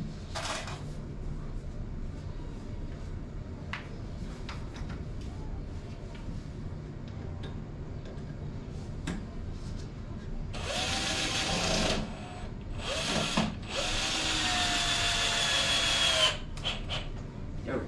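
Light-duty power drill running in three bursts, most likely driving screws to fix legs to the wooden platform: about a second and a half, a short blip, then about two and a half seconds, each with a steady motor whine. Handling knocks come before the first burst.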